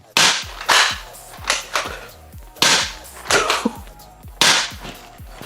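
Bug-A-Salt spring-air gun firing repeatedly at close range: a string of sharp pops, about seven of them, some close together, fired at a person's body.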